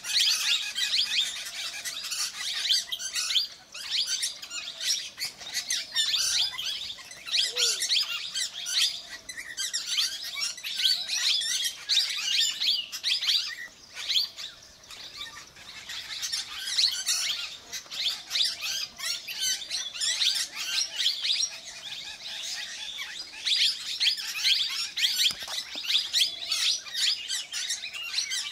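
Plum-headed parakeets squabbling, a dense run of rapid, shrill chirping calls that eases briefly about three and a half seconds in and again around fourteen seconds in.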